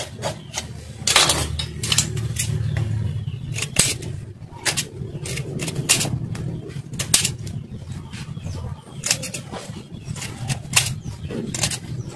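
Knife chopping and scraping at a fish on a cutting board: irregular sharp knocks, about one or two a second, over a steady low hum.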